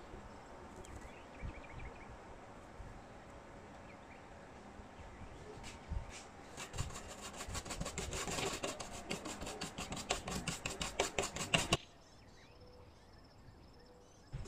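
Rapid, even rubbing strokes, about six a second, start about seven seconds in and stop abruptly before the end.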